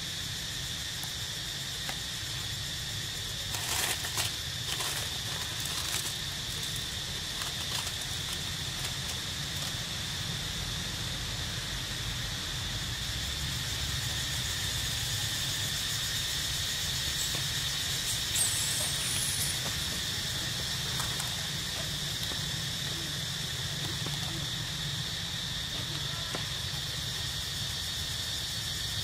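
Steady, high-pitched insect chorus over a low rumble. A few sharp clicks come about four to six seconds in, and a short rising chirp a little past the middle.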